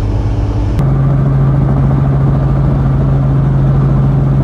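Steady engine and rotor drone heard inside a helicopter cabin: a loud, low hum that holds one pitch.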